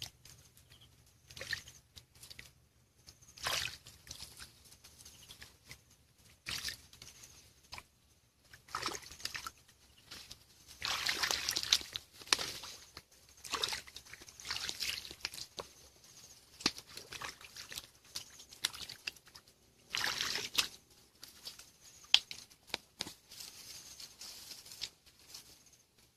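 Hands sloshing and splashing through shallow muddy stream water while groping by hand for fish, in irregular bursts with quiet gaps, the loudest about eleven and twenty seconds in.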